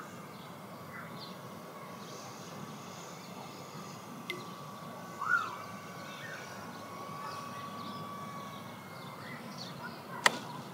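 Quiet outdoor ambience with birds chirping and a thin steady whine from the E-flite Draco's electric motor at low power as it comes in to land. A short rising-and-falling chirp sounds about five seconds in, and a sharp click near the end.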